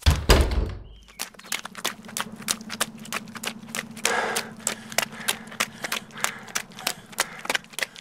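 A heavy thud, then a long run of sharp, quick taps, about three or four a second, over a steady low hum.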